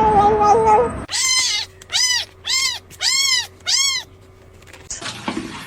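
A cat meowing five times in a row, each meow rising and then falling in pitch. Before the meows, a long, steady, lower-pitched call ends about a second in.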